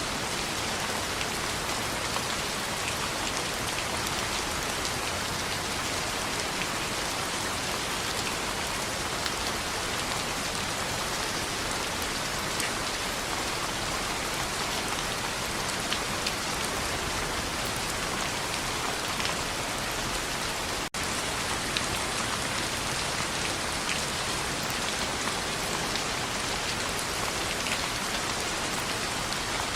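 Steady rain on a window pane: an even hiss with scattered faint ticks, cutting out for an instant about two-thirds of the way through.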